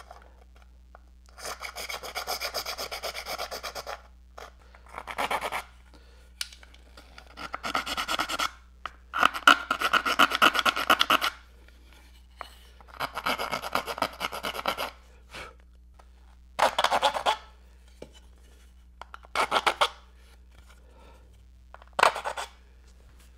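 Hand abrading the narrow slots of an epoxy-coated wooden kayak backrest: bursts of quick back-and-forth scratchy strokes, each lasting a second or two, with short pauses between them.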